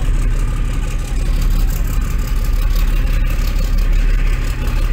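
Boat engine running steadily close by, a loud low rumble with a hiss over it.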